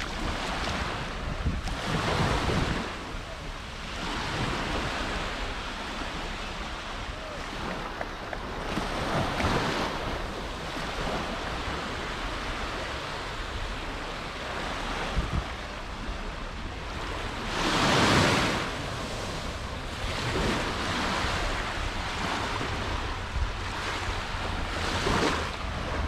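Sea waves breaking and washing up on a sandy beach, swelling every few seconds, loudest about eighteen seconds in. Wind rumbles on the microphone throughout.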